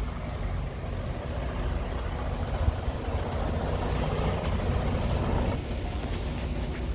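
Semi-truck's diesel engine idling with a steady low rumble. A rushing hiss builds over it and cuts off suddenly about five and a half seconds in, followed by a few sharp clicks.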